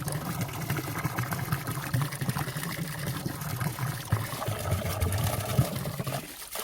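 Valley stream flowing among rocks and ice, water trickling and gurgling steadily, with a brief drop in level near the end.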